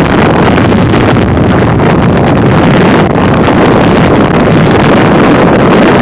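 Loud, steady wind noise rushing over a phone's microphone.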